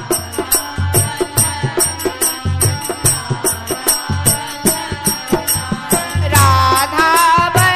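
Devotional naam-dhun chant music: a steady, even beat of drum and jingling percussion, with a chanting voice coming in about six seconds in.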